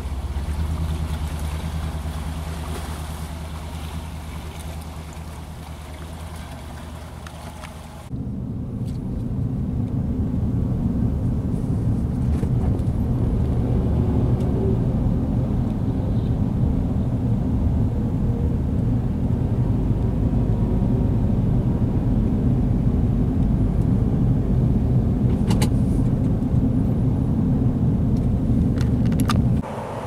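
Steady low outdoor rumble of gusting wind mixed with road-traffic noise. A sudden cut about eight seconds in brings a louder, deeper rumble that holds steady.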